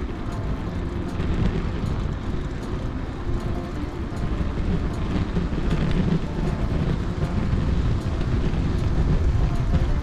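Wind buffeting the microphone of a moving bicycle, with tyre noise on asphalt: a steady low rumble that grows a little louder after about a second.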